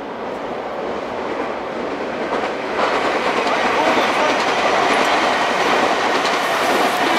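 Passenger train approaching on the tracks: wheel-on-rail rumble and clatter that grows steadily louder, stepping up sharply about three seconds in.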